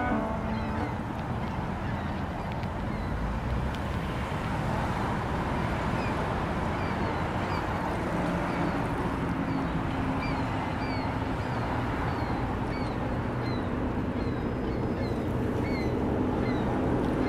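Ambient soundscape: a steady rushing noise, with many short high chirps from birds scattered through it.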